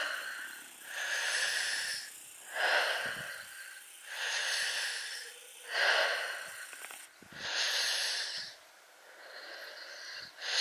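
A person breathing hard close to the microphone: about six heavy breaths, one every second and a half or so, each a short rush of air.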